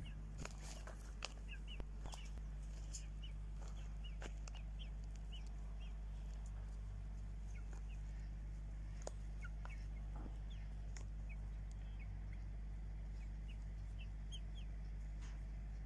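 Chickens clucking quietly, with many short high chirps scattered through and a few sharp taps near the start, over a steady low hum.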